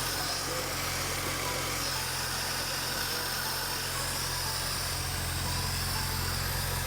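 Honda Civic Si engine idling steadily, warming up after a radiator replacement and coolant refill.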